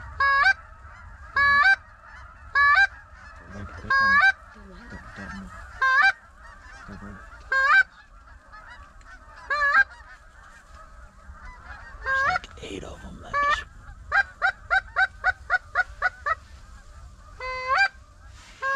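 Snow goose honks: loud single calls every second or two over the steady chatter of a large flock, with a quick run of about nine short honks past the middle.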